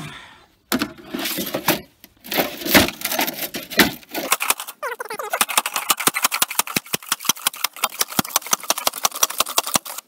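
Roasted, brittle iron-ore rock being crushed by pounding a long-handled tamper down into a sheet-metal tube. A few irregular crunching blows come first, then from about five seconds in a fast, even run of strikes, about seven a second.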